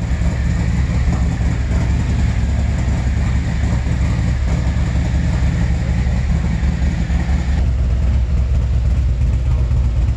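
Harley-Davidson Milwaukee-Eight 107 V-twin running steadily, fitted with a Red Shift 468 cam and a Khrome Werks 2-into-2 header with slip-on mufflers.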